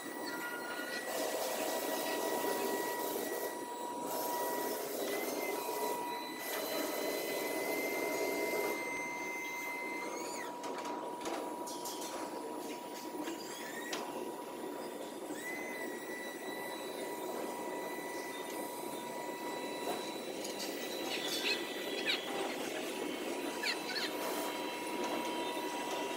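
Articulated boom lift's hydraulic drive running steadily as the boom moves, giving a high steady whine over a hiss. The whine's pitch shifts briefly a few times.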